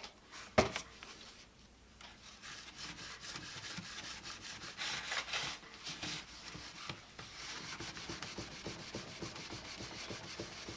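Rapid back-and-forth scrubbing on the plastic case of a Beckman digital multimeter, rubbing at permanent-marker writing with Mr. Clean cleaner. There is a sharp knock about half a second in.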